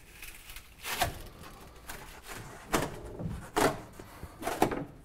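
GoBoard foam tile backer board being folded back and forth along a scored line to snap off the excess, with four short cracking creaks about a second apart.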